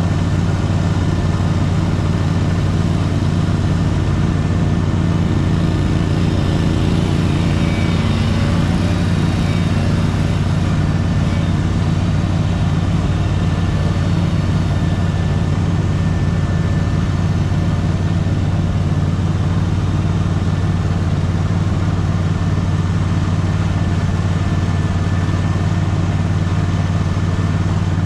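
Small petrol engine of powered lawn equipment running steadily at constant speed, with no change in pitch or load.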